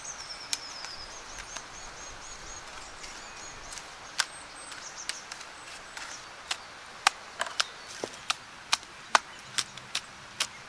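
A mason's trowel clinking and tapping against stone and the mortar bucket while mortar is laid on a stone wall: sharp separate clicks, few at first and then about two a second in the second half. A songbird sings a high, wavering string of notes in the first three seconds.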